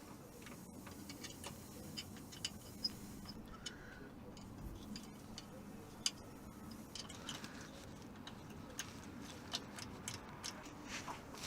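Faint, scattered metallic clicks and light taps of tools and engine parts being handled while timing chain components are fitted by hand.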